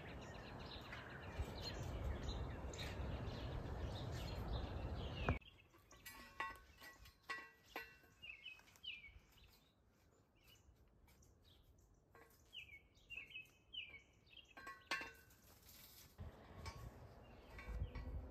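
Small birds chirping in short repeated calls, over a steady rushing noise that cuts off suddenly about five seconds in and comes back near the end.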